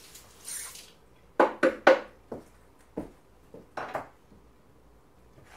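A dish being handled in a kitchen sink: three sharp knocks in quick succession about a second and a half in, then a few lighter clacks.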